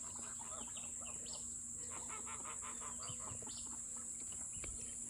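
Poultry calling faintly: a scatter of short calls, with a quick run of repeated notes about two seconds in, over a steady high drone of insects.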